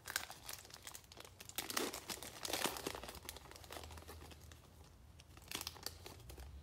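Foil wrapper of a Donruss Optic football card pack crinkling as it is torn open and pulled apart, in uneven crackles.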